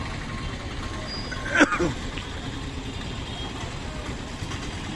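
Busy street traffic of autorickshaws and cars, a steady mixed hum. About one and a half seconds in there is a brief, loud sound that falls in pitch.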